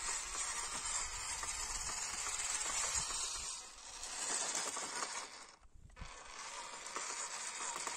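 Small RC jeep's electric motor and gearbox whirring with a grainy, ratchety grind as it drives over dry crusted clay, with tyres crunching on grit. The sound drops away briefly about five and a half seconds in, then picks up again.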